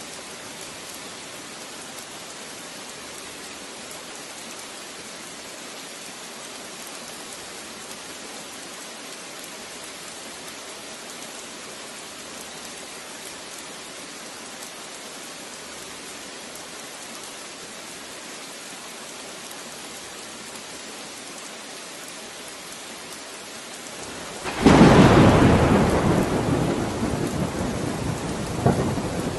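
Steady hiss of rain, then near the end a sudden loud clap of thunder that rumbles and fades over several seconds, with a second, smaller crack a few seconds later.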